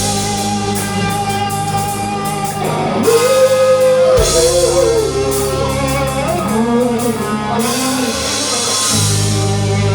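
A live rock band playing: electric guitar with bass and drum kit, a melodic line bending in pitch over a steady low bass.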